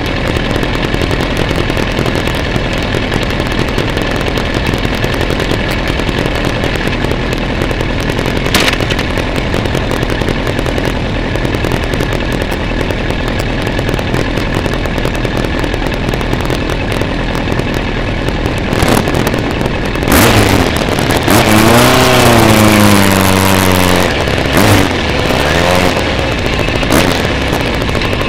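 Motorcycle engines idling steadily, then about twenty seconds in an engine revs up as the bike pulls away, its pitch rising and dropping several times as it changes up through the gears.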